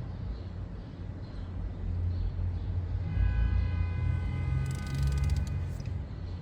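A ratcheting torque wrench is worked on a spark plug, with a quick run of fine ratchet clicks about five seconds in. A steady low rumble runs underneath, and a steady whine of several high tones sounds between about three and six seconds in.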